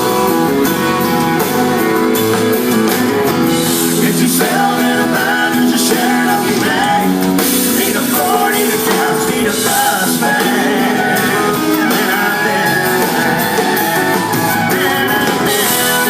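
Live band playing a rock-tinged song with guitars and drum kit.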